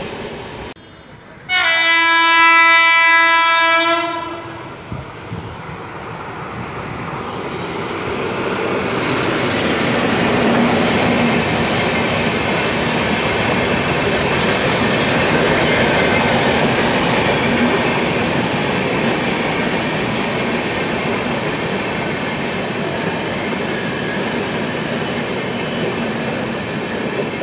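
WAP-7 electric locomotive sounding one long horn blast about two seconds in. Then the steady rumble and wheel clatter of its LHB passenger coaches running through the station without stopping, growing louder as the coaches pass.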